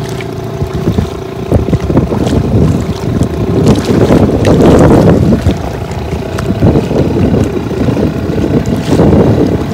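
Strong wind buffeting the microphone in gusts, a loud uneven rumble that swells toward the middle.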